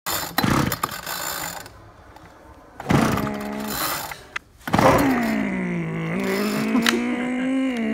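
Recoil pull-starter on a cut-in-half weed trimmer two-stroke engine being pulled, turning the engine over with a rattling whir: two short pulls, then a longer, slower pull with a drawn-out whirring tone whose pitch dips and rises. The engine does not fire.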